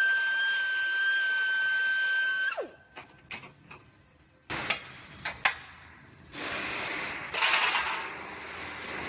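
High-pitched power tool cutting apart a car's radiator support: it whines steadily, then winds down about two and a half seconds in. A few sharp metal clinks and knocks follow, then a stretch of rough, hissing noise near the end.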